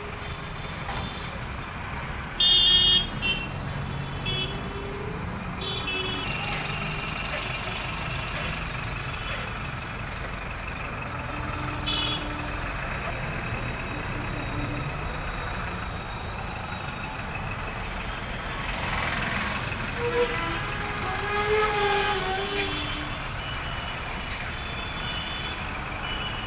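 Street traffic rumbling steadily, with a loud horn honk about two and a half seconds in and a few shorter honks just after.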